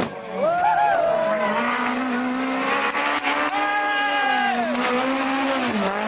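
Rally car engine revving hard, its note climbing and falling with throttle and gear changes. The engine is held high for about a second in the middle, drops away, then climbs again near the end.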